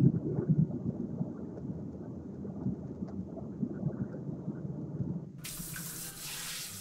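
Rocket-engine rumble sound effect, a low rumble dying down as the rocket settles, then a sudden hiss about a second before the end.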